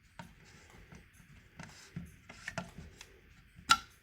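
Fire alarm pull station being reset with a hex key: small metal clicks and handling noise, ending in one sharp click a little before the end.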